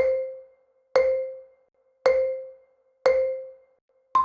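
Countdown sound effect: four short mallet-like beeps one second apart at the same pitch, each fading quickly, then a fifth beep an octave higher to mark go.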